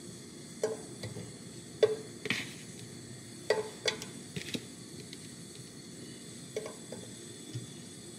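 A scattering of light knocks and clacks of kitchen items, about nine in all, over a faint steady sizzle of onions sautéing in oil in a pan.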